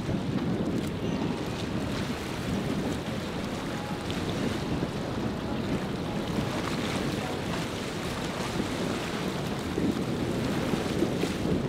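Breaking waves and churning water with wind buffeting the microphone, over the steady running of a center-console boat's outboard motors as it pushes through rough water.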